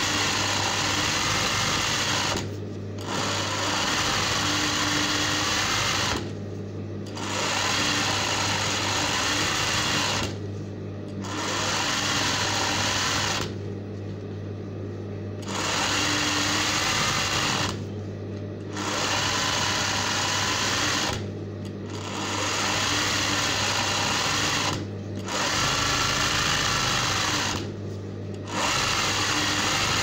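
Sewing machine stitching hand-guided free-motion embroidery in runs of a few seconds, stopping briefly about eight times as the hoop is moved. A low steady hum continues through the pauses.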